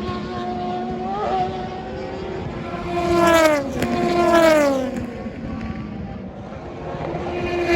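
Endurance race cars passing at speed, each engine note dropping in pitch as it goes by. Two pass in quick succession about three and four and a half seconds in, with other cars running further off and another approaching near the end.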